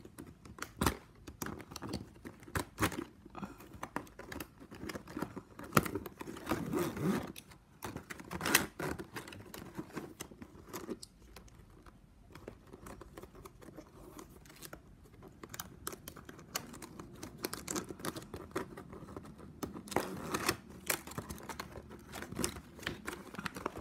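Stiff plastic strapping band rustling, scraping and clicking as strip ends are pushed and tucked through a woven strap weave, in irregular crinkles and sharp ticks.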